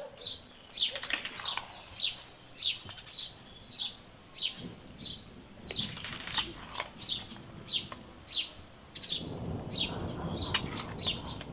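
A bird calling steadily: a short, high, falling chirp repeated about twice a second. A low rustling noise joins in for the last couple of seconds.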